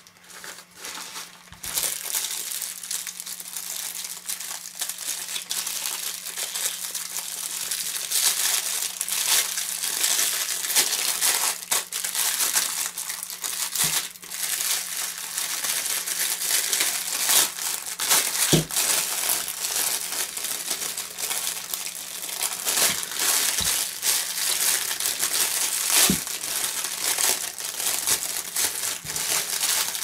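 Clear plastic wrapping crinkling and crackling continuously as hands tear and peel it off a small black plastic-and-metal camera belt mount, with a few short knocks scattered through.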